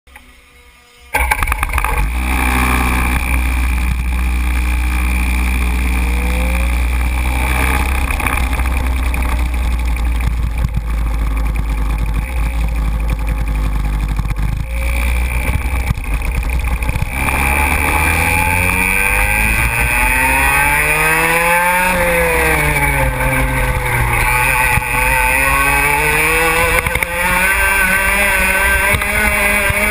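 IAME Leopard 125cc two-stroke kart engine starting about a second in and running steadily at low revs, then revving up and down with the kart's speed in a rising and falling whine.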